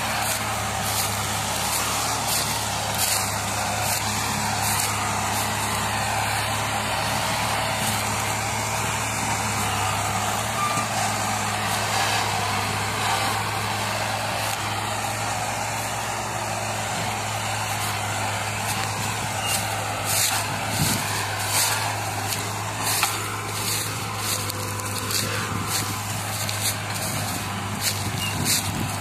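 Diesel engines of a New Holland and an HMT tractor running steadily under heavy load as they pull a fully loaded sugarcane trolley. Short crackles come and go on the microphone, more often near the end.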